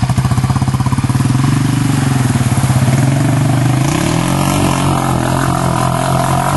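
Yamaha Raptor quad's single-cylinder engine idling with an even pulse, then revving about four seconds in as the quad drives through shallow water, with splashing.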